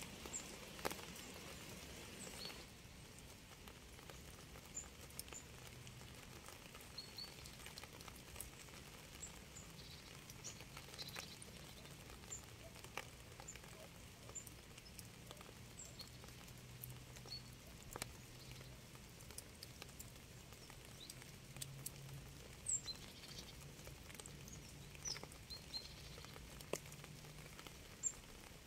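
Light rain: scattered single drops tapping and dripping over a soft, faint patter, with small high ticks among them. A faint low hum sits under it through the middle.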